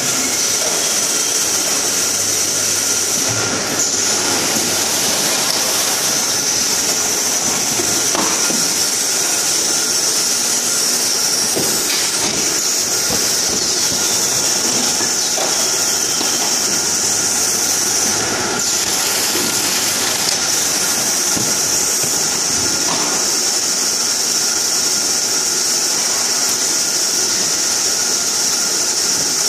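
Steady mechanical din of an automatic carton packing line, conveyors and packing machines running, with a constant high hiss and a few faint knocks.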